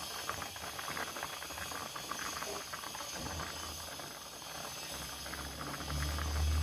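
Pan of patin fish and chillies cooking hard, the liquid bubbling and hissing with a dense crackle. About five seconds in a low rumble comes in and grows louder.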